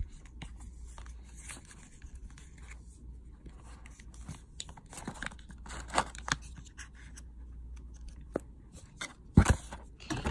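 Handling of a folding cardboard jewellery box and packaging paper: scattered light rustles, scrapes and taps as the box is folded and set back among other boxes, with one louder knock about nine seconds in.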